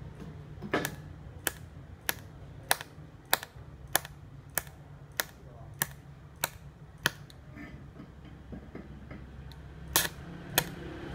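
Automatic weld-ripple pulser on a TIG welder clicking in a steady rhythm, about one sharp click every 0.6 seconds, over a low steady hum. The clicks stop about seven seconds in and start again near the end.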